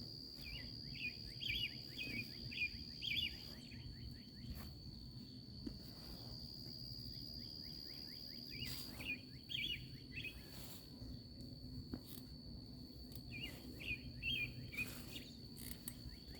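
Outdoor ambience: an insect keeps up a steady, high-pitched trill while a bird gives quick runs of chirps three times: at the start, around nine seconds in, and shortly before the end. A few faint clicks and rustles come in between.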